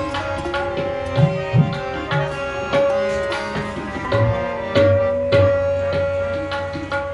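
Devotional Indian music, plausibly Gurbani kirtan: tabla strokes, with the bass drum's notes gliding in pitch, under long held melodic notes.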